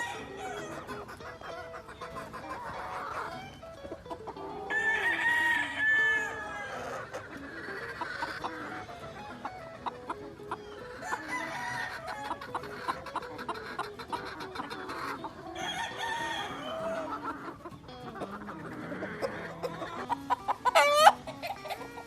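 Gamefowl roosters crowing in turn, with clucking between the crows; the loudest crow comes about five seconds in, and a short, sharp high call near the end is the loudest sound of all.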